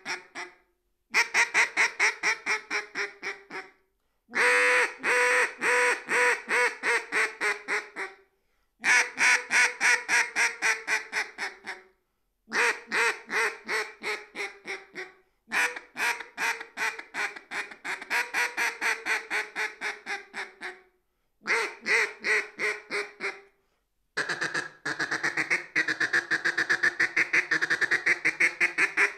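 Siren Mythology double-reed duck call blown in imitation of a duck, in strings of rapid quacks of a few seconds each, about five a second, each string sagging slightly in pitch. Near the end the quacks run together into one unbroken, faster chatter with a wavering pitch.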